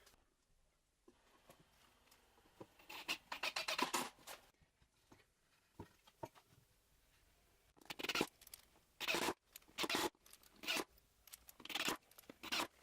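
Short, irregular bursts of scraping and rustling from wooden parts and a paper shim being handled and fitted, with quiet gaps between them.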